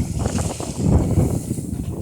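Wind buffeting the microphone over water splashing against the hull of a Banks dory sailing upwind through choppy seas, the rush rising and falling in gusts.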